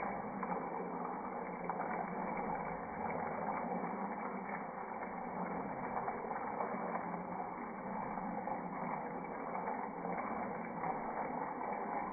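Julienned potatoes simmering in a pan of spiced liquid, a steady sizzle and bubble with many small crackles.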